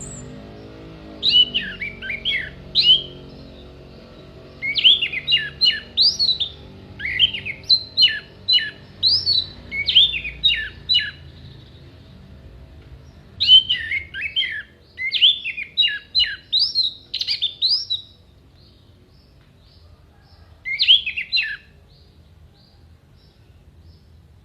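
Orange-headed thrush singing loud, rapid runs of sharp, sweeping whistled notes and mimicked phrases. The song comes in four bursts with pauses between them, the last one short, about three-quarters of the way through.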